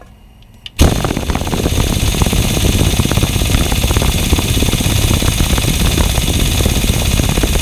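Impact wrench hammering continuously on a seized bolt, starting about a second in and running about seven seconds without breaking it loose. The bolt runs through the water pump and timing cover into the engine block.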